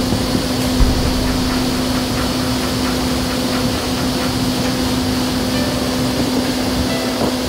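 Vertical wind tunnel's fans and airflow running at flying speed: a steady rush of air with a constant low hum.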